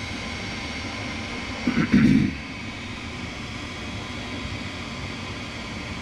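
Gas furnace running during a test start, a steady rushing hum from its motor and airflow. A brief loud thump about two seconds in.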